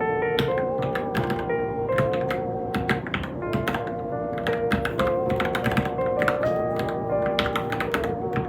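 Irregular, quick keystrokes typed on a Varmilo Minilo mechanical keyboard, over background music with a wavering melody.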